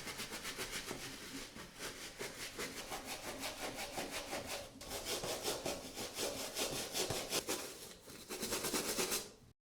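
A brush scrubbing an Air Jordan 1 Mid sneaker with dish soap and water in quick, even back-and-forth strokes. The strokes break off briefly about halfway through, resume, and stop just before the end.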